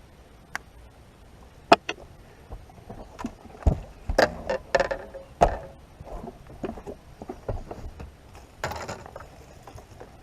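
Scattered knocks and clatters of gear and handling in a small fishing boat, the sharpest a little under two seconds in and a busy run of them around the middle, with a brief rushing sound near the end.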